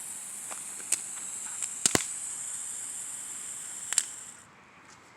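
A small ground firework burning with a steady high hiss of spraying sparks and a few sharp crackling pops, then burning out about four seconds in.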